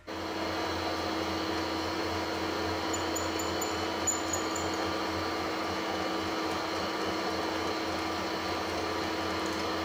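Harrison 140 lathe running at steady speed, its motor and headstock giving an even hum, while a reamer is fed into a spinning phosphor bronze bush. A few faint high squeaks come about three to four seconds in.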